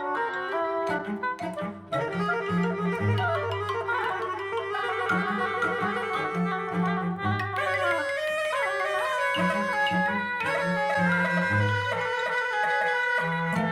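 Instrumental music played back through Elfton Vegas II floor-standing loudspeakers: a melody over repeated bass notes, with a short drop in level about two seconds in.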